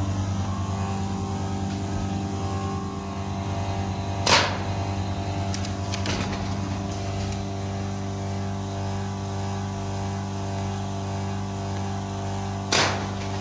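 Steady low machinery hum inside a factory building, one pitch with its overtones and no change in speed. Two sharp cracks cut across it, the louder about four seconds in and another near the end.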